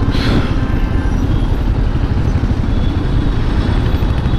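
Road traffic heard from a motorcycle moving slowly through a jam of cars, trucks and a bus: a steady low rumble of engines, with a short hiss just after the start.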